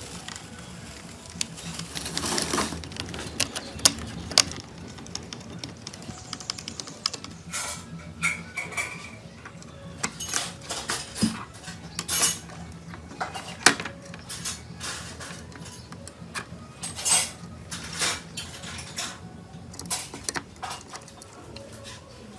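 Hard plastic parts of a toy remote-control car being handled and pulled apart: irregular clicks, snaps and light clatter of plastic and small metal pieces on a table, over a faint steady hum.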